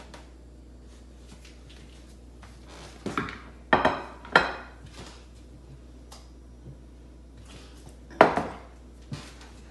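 Glassware and jars being set down on a stone countertop: a handful of knocks and clinks, with two sharp ones about four seconds in and another near the end.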